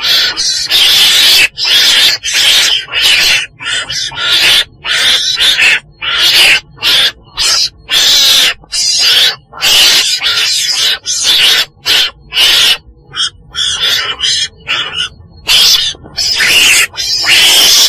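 Weasel (Mustela) calls: a rapid string of short, harsh, hissing-chattering cries, each a fraction of a second long, following one another with brief gaps.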